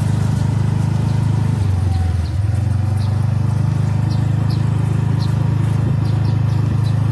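Motor scooter's small engine running steadily while riding, a loud low hum that eases briefly about two seconds in and then picks back up.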